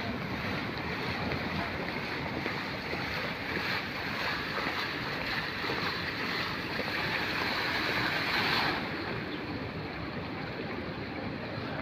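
Steady splashing of a plaza floor fountain's water jets falling onto the paving grates. About nine seconds in it cuts off suddenly as the jets shut down, leaving a low background rumble.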